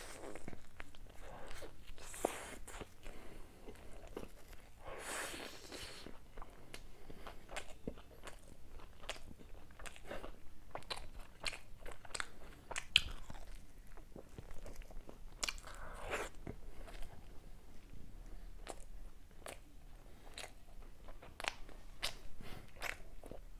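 Close-miked eating of a baked Domino's Zingy Parcel pastry: crunchy bites and chewing, full of short crackly clicks, with a few louder crunches along the way.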